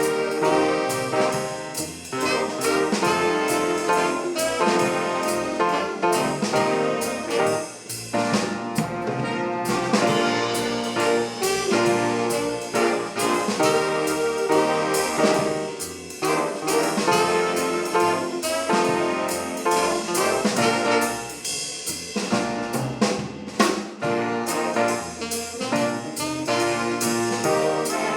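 A high school big band playing swing-style jazz: trumpets, trombones and saxophones over a drum kit keeping a steady beat.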